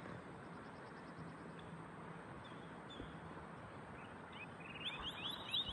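A small bird singing: faint high ticks early on, then a quick run of repeated chirps that grows louder near the end, over a faint steady outdoor background.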